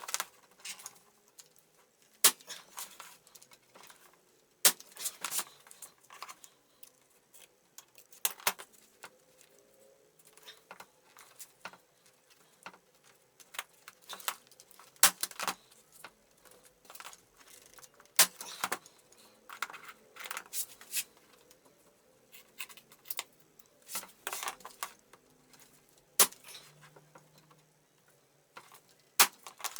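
Irregular sharp clicks and taps with short scraping, tearing-like rustles: hands working on the upholstery of a car door card.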